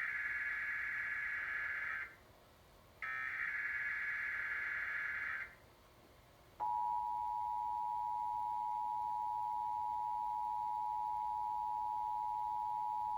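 Emergency Alert System SAME header data bursts: harsh buzzing digital squawks, two of them about two seconds long with a one-second gap between. About six and a half seconds in, the steady two-tone EAS attention signal begins and holds, announcing a monthly test broadcast.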